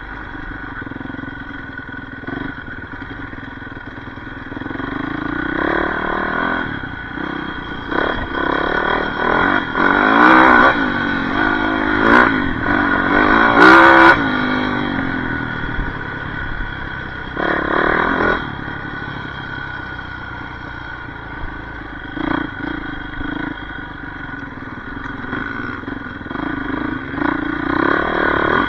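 Yamaha YZ450F dirt bike's single-cylinder four-stroke engine being ridden off-road, revving up and dropping back again and again, loudest in a run of hard throttle bursts in the middle. A few sharp knocks come through along the way.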